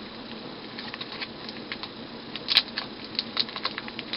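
Plastic packaging around trading cards being handled and opened: scattered small clicks and crinkles, with a sharper crinkle about two and a half seconds in.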